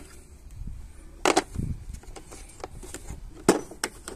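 Scattered sharp knocks and clunks of tools and gear being handled and set down. The loudest comes about a second in, another about three and a half seconds in.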